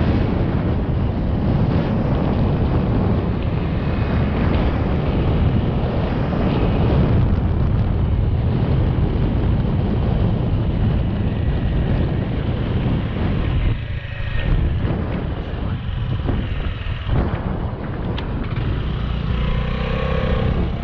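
A small motorcycle's engine running under way, mixed with wind rushing over a helmet-mounted microphone. The noise eases twice, briefly, about two-thirds of the way through, as the bike slows into a turn.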